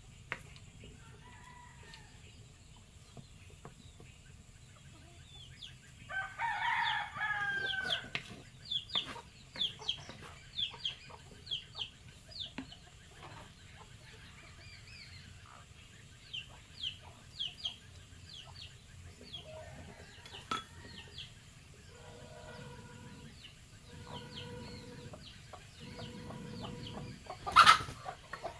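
A rooster crows once, about six seconds in, among many short high chirps from small birds. Later come a few short calls held at one pitch. Near the end a single sharp knock is the loudest sound.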